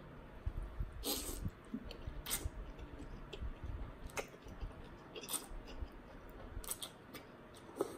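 A person slurping and chewing rice noodles in curry soup: a string of short, wet slurps and mouth smacks about every second.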